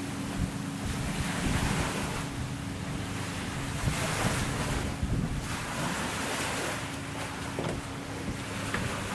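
Wind buffeting the microphone and lake water washing in surges that swell and fade every second or two, over a steady low hum.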